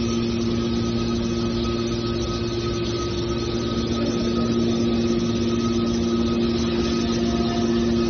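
Hydraulic scrap metal baler's power unit running: a steady machine hum with a constant low pitch and no breaks.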